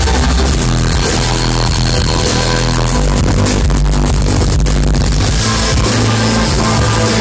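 A live electronic rock band playing loud through a concert PA, with a heavy bass beat and keyboards, heard from the audience.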